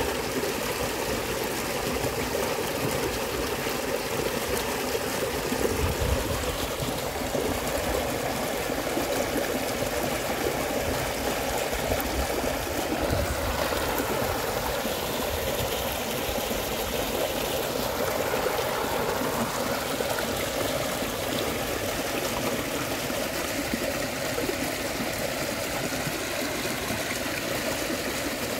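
Small muddy stream rushing and splashing over a rough dirt bed: a steady, unbroken water noise.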